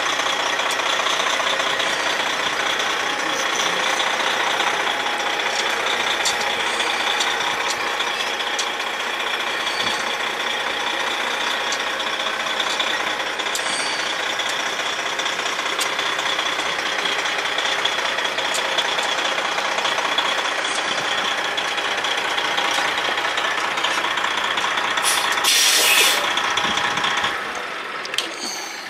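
The diesel engine of a 1996 Freightliner FLD120 grain truck idles steadily. About 26 seconds in there is a loud hiss of air from the truck's air system, and then the engine is shut off and the sound dies away near the end.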